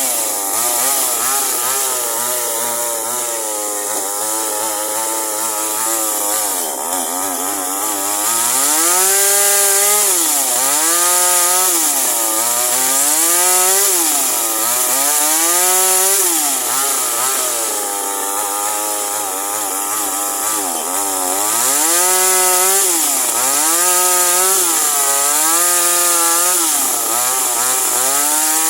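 Toyama TCS25X 25.4 cc two-stroke chainsaw running and cutting wood. Its engine pitch holds fairly even for the first several seconds, then rises and falls again and again, about every two seconds, as it is revved and loaded.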